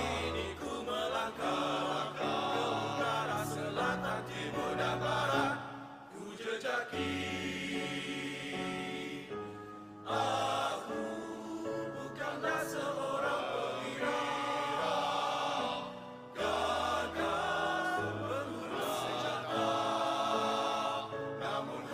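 Male choir singing in several-part harmony, in long phrases with short breaks about six, ten and sixteen seconds in.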